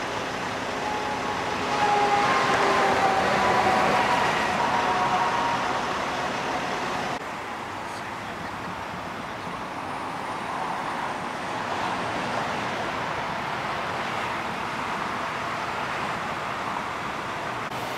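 Steady rush of freeway traffic. About two seconds in, one vehicle passes close by and loudly, its pitch sliding slightly lower as it goes.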